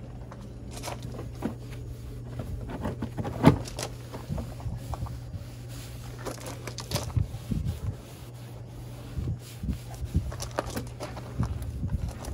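Microfiber towel wiping down a sanded plastic car bumper with alcohol to clean it before painting: scattered soft rubbing and scuffing, with a sharper knock about three and a half seconds in, over a steady low hum.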